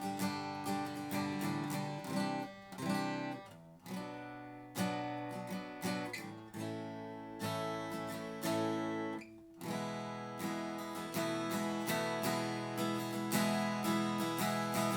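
Replica Gibson J-160E acoustic guitar strummed through a run of chords, with its soft, mellow tone. The playing breaks briefly about four seconds in and again about nine and a half seconds in.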